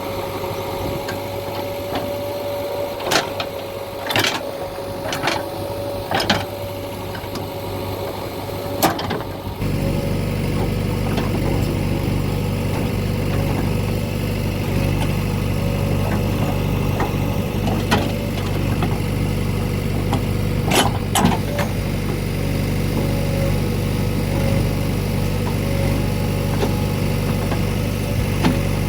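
JCB 3DX backhoe loader's diesel engine running with a steady whine, and sharp knocks and clanks now and then. About ten seconds in, the engine's rumble gets louder and deeper and stays so.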